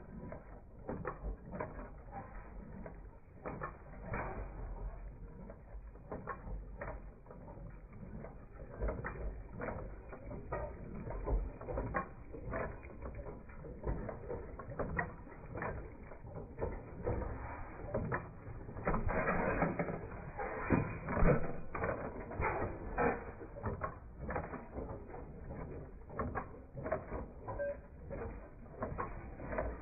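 Running machinery clicking and knocking irregularly, with a louder, denser stretch about twenty seconds in.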